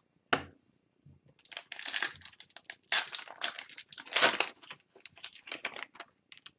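Foil wrapper of an Upper Deck hockey card pack crinkling and tearing as it is ripped open by hand. A single sharp click comes about a third of a second in.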